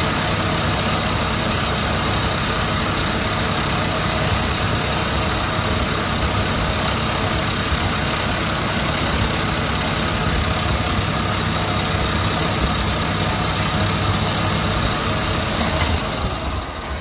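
CNC lathe running, its spindle turning a steel workpiece while a carbide insert turns a taper, with a steady machine hum and a constant high whine. Near the end the high whine drops away as the cut finishes and the tool withdraws.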